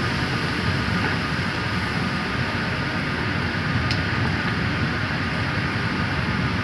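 A pot of tomato-based seafood stew with mussels and squid boiling hard on a gas stove: a steady, dense bubbling noise.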